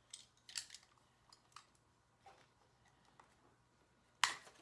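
Faint handling sounds of a green string and black heat-shrink tubing being worked along each other by hand: scattered soft clicks and rustles, with a sharper click about four seconds in.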